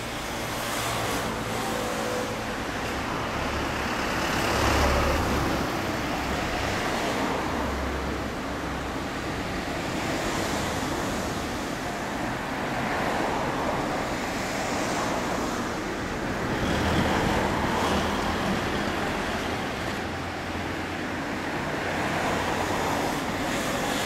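1999 Yamaha XJR400's air-cooled inline-four running through an aftermarket titanium 4-into-1 exhaust, its sound swelling and falling every two to three seconds.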